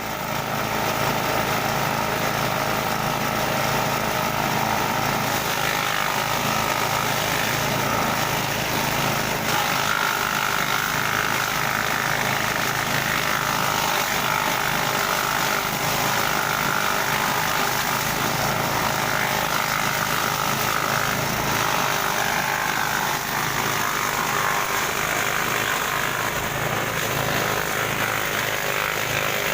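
Grass chopper machine running steadily.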